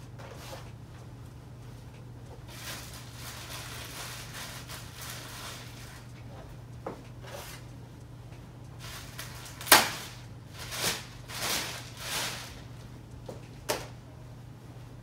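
Handling noises: a sharp clack about ten seconds in, then a few brief rustling scrapes and another clack near the end, over a faint steady low hum.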